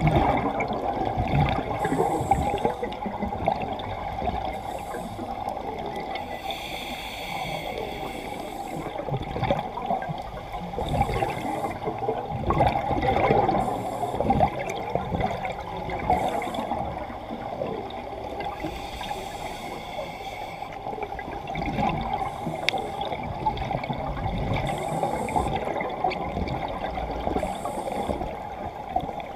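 A scuba diver breathing through a regulator, recorded underwater: short hissing inhalations every two to three seconds, and a steady gurgle of exhaled bubbles between them.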